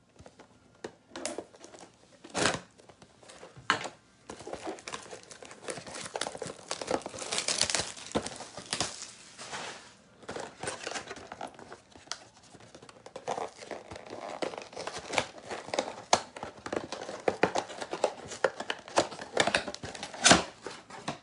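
Plastic shrink wrap being torn and crinkled off a Prestige football card mega box, and the cardboard box being opened, as a long stretch of irregular crackling. A few sharp knocks come in the first few seconds and again near the end.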